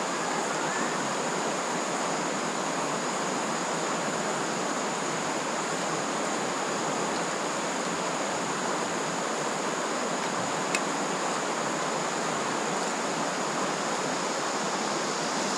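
Mountain valley stream rushing steadily, with a thin high steady tone over the water and a single sharp click about ten and a half seconds in.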